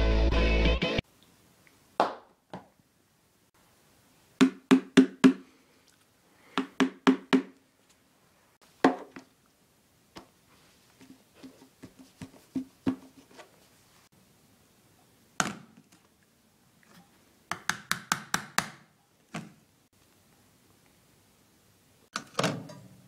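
Guitar music stops about a second in. After it come clusters of sharp knocks and taps of hard objects striking: four in quick succession, then three, single knocks, faint light taps, and a fast run of six or seven knocks, with quiet between the clusters.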